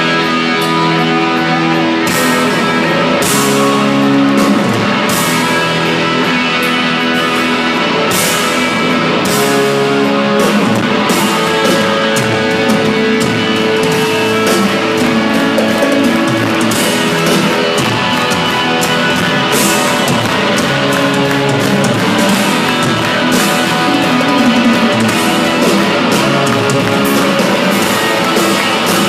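Rock band playing live through an arena PA: loud distorted electric guitars and drums, with frequent cymbal crashes.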